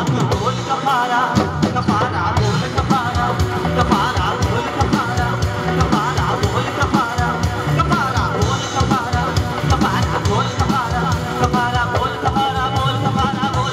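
Live band music: drum kit, keyboard and dhol playing a steady beat under a male voice singing into a microphone, loud and unbroken.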